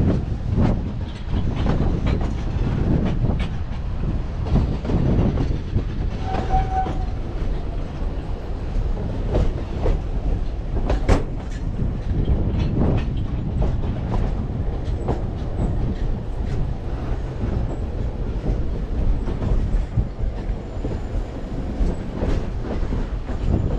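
Narrow-gauge steam train rolling along the track: a steady low rumble with irregular clacks and knocks from the wheels on the rails, and a brief high tone about six seconds in.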